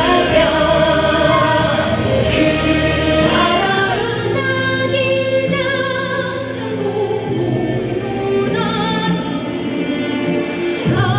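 Live fusion Korean traditional music: a woman sings into a microphone over violin and gayageum.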